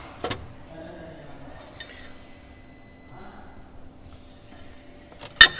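Metal clinks and knocks as a mould and a screen holder are handled on a screen laminator's aluminium work plate: a couple of light clicks at the start, a short thin ringing tone about two seconds in, and loud clattering knocks near the end.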